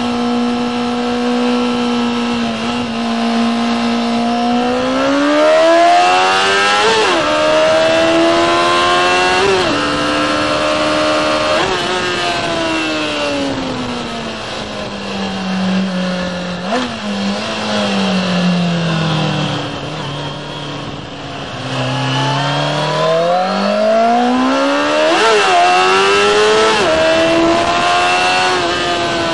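Kawasaki ZX-6R's inline-four engine heard onboard, steady for a few seconds, then revving up through the gears with a short dip in pitch at each upshift. It then slows on a falling note with a brief rev partway through, and accelerates up through the gears again near the end.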